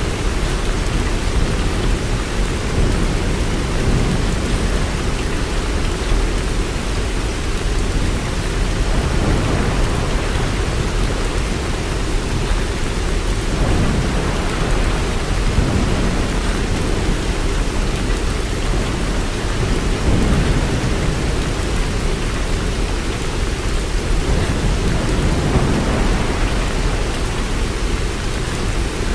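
Steady heavy rain with a low rumble underneath that swells and fades gently.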